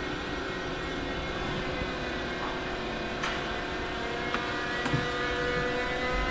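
DB Class 193 Siemens Vectron electric locomotive pulling slowly by, its traction equipment whining in several steady tones that begin to rise in pitch near the end. A few sharp clicks come from the running gear about halfway through.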